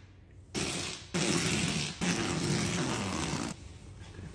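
A small power tool running in three bursts, about half a second, then nearly a second, then about a second and a half long, with short stops between.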